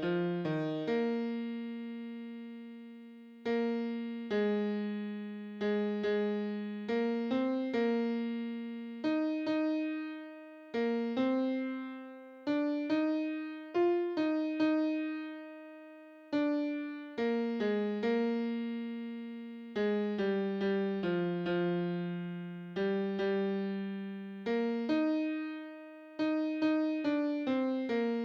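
A piano sound plays a single melody line in the tenor range, one note at a time, each note struck and left to fade, some held for a few seconds. It is the tenor part of a four-part choral arrangement, played alone for part practice.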